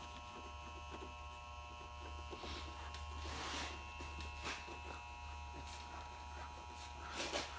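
Steady electrical hum and buzz, with a few brief rustling or scraping handling sounds about two and a half, four and a half and seven seconds in.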